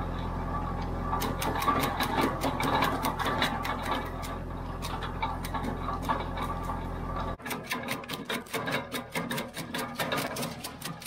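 BCS Victor 400 compact tractor's engine running steadily, with a rapid, even clicking over it. About seven seconds in the engine sound cuts off abruptly and the clicking goes on alone.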